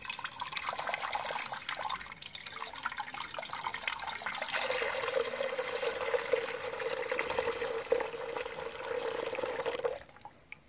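Limestone water poured through a sieve into a pot of palm oil and stirred in with a wooden spatula: steady splashing and trickling that stops suddenly about ten seconds in. The limestone water is emulsifying the oil into the yellow base of achu soup.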